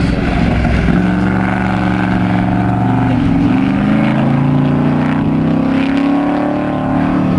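Cobra's 427 cubic-inch V8 at racing speed, its engine note falling and climbing again several times as the car works through a run of corners.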